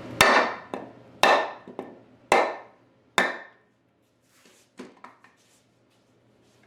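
Four sharp blows on wood about a second apart, each with a brief ring, then two lighter knocks a little later.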